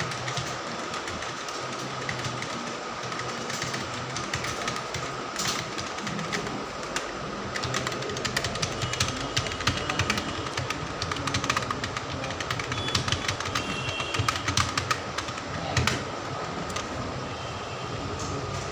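Computer keyboard keys being typed rapidly in a number-typing test, a stream of sharp clicks that comes thickest in the middle stretch. A steady rumbling hum runs underneath.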